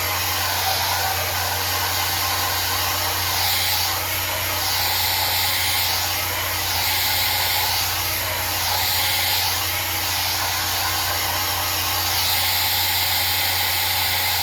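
Handheld hair dryer blowing steadily, a motor hum under an even hiss that swells and fades about every two seconds, used to dry the glue under a lace wig.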